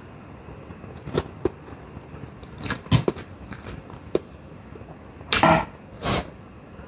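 Eating at the table: a metal fork clinking and scraping on a ceramic plate, a few short sharp clinks, then two louder scrapes a little past five and six seconds in.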